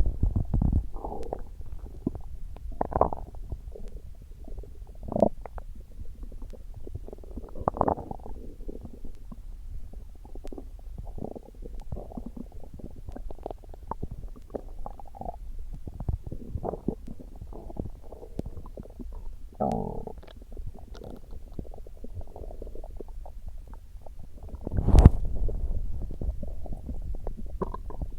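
Human stomach growling: irregular gurgles and rumbles come and go, with one brief, much louder burst near the end.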